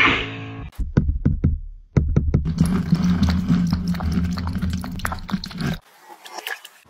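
A cat lapping water from a bowl: a quick run of sharp wet clicks, heard through the water from a phone lying in the bowl, over a steady low hum.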